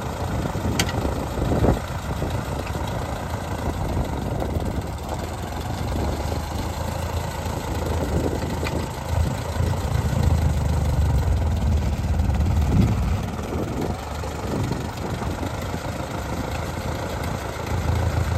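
Ford 8N tractor's four-cylinder flathead engine running at low speed while the tractor is driven, growing louder for a few seconds around the middle.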